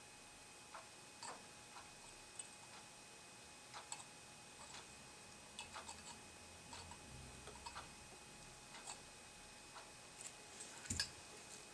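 Faint, irregular small clicks and crackles as a soldering iron melts rosin-core solder onto a metal carburetor float to close a hole. A louder click with a soft knock comes near the end.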